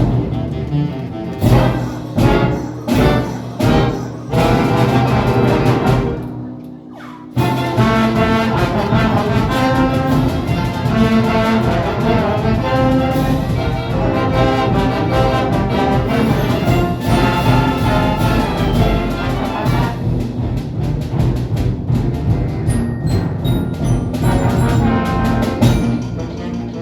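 A school jazz band playing a brass-led galop: short, separated chord hits for the first several seconds, then a continuous full-band passage from about seven seconds in.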